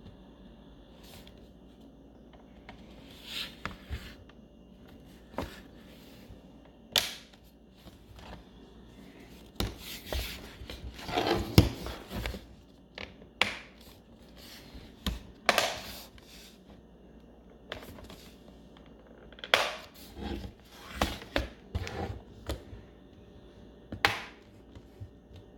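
Plastic bottom cover of an HP Pavilion x360 laptop being pressed back on, its clips snapping into place: irregular sharp clicks and snaps with handling of the plastic case, busiest about halfway through and again near the end.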